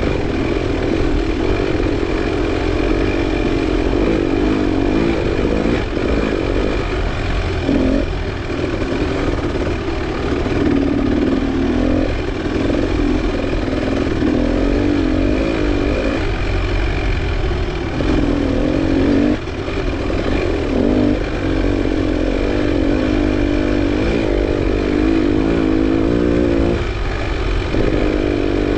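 Off-road dirt bike engine running hard during a cross-country race, heard close up from the handlebars, its revs rising and falling continually as the rider works the throttle, with a couple of brief drops.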